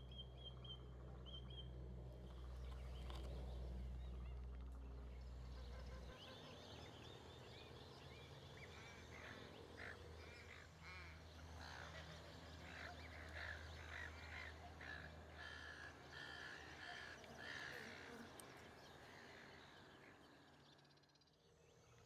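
Faint wetland ambience: a low rumble for the first six seconds, then a run of short, distant animal calls repeated over about ten seconds.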